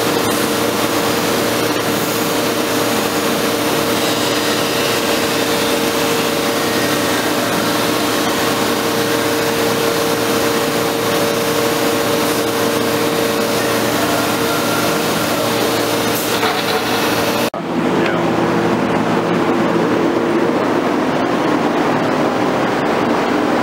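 Biesse Rover 15 CNC woodworking machining center running: a steady hum with a loud hiss. The sound changes abruptly to a duller noise about 17 seconds in.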